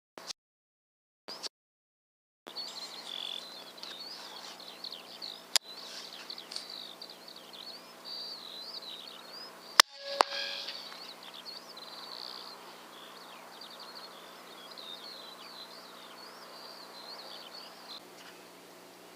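Birds singing, with a sharp click about five and a half seconds in. Near the middle comes the loud crack of a .22 LR rifle shot, followed a fraction of a second later by a second sharp knock.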